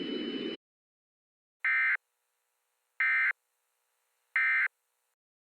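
Three short identical bursts of EAS digital data tones (the SAME End of Message 'NNNN' signal), each about a third of a second long and about a second and a half apart, closing the alert.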